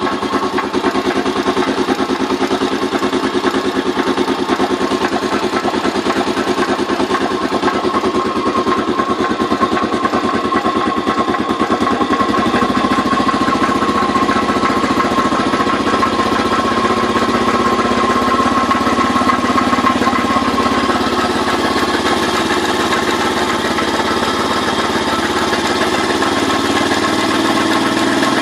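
Daelim Roadwin motorcycle engine running steadily at about idle, with a steady high-pitched tone over the engine note, a noise that the owner finds strange. The lower part of the engine sound thickens about twelve seconds in.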